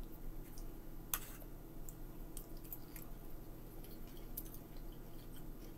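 Faint wet mouth sounds of someone chewing a spoonful of ravioli, with several light clicks of a spoon against a small bowl, the sharpest about a second in.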